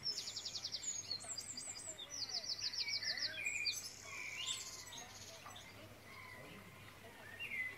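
Small birds chirping and calling, with a fast trill of rapidly repeated high notes just after the start and another around two to three seconds in. The calls grow quieter after about four seconds.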